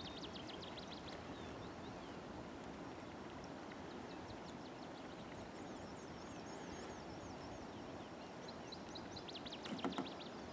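Faint songbirds singing: spells of quick, high chirps and trills over a soft steady outdoor hiss, returning several times. A single light knock sounds near the end.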